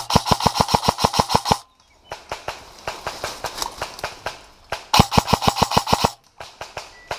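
Krytac Trident airsoft electric rifle firing two full-auto bursts of about a dozen shots a second, the first right at the start and lasting about a second and a half, the second about five seconds in. Fainter rapid automatic clicking fills the gap between them.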